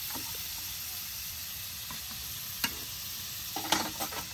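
Food sizzling in a frying pan, a steady hiss, with a sharp click about two and a half seconds in and a cluster of stirring clicks near the end.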